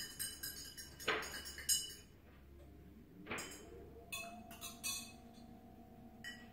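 Ice cubes and glassware clinking at a cocktail bar: a quick run of ringing clinks in the first two seconds, then a few separate clinks about four to five seconds in, with a couple of brief rushing sounds between them.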